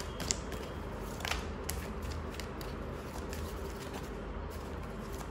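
Oracle deck cards being handled and shuffled by hand: a few soft slides and quick flicks of card stock, over a steady low hum.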